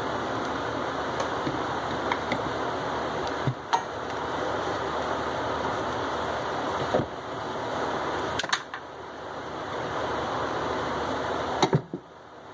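Steady rushing of a shop fan, with a few sharp clicks and knocks as a grease gun's coupler is worked off a bearing greaser's zerk fitting and the gun is set down on the bench, the last knock near the end.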